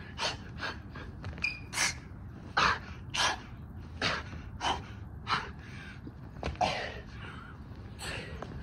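Heavy breathing of a man out of breath from burpees: a run of short, sharp gasps and panting exhales, one every half second to second.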